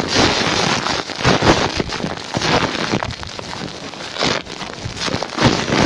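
Waterfall water rushing and splashing: a loud, crackly hiss that surges unevenly.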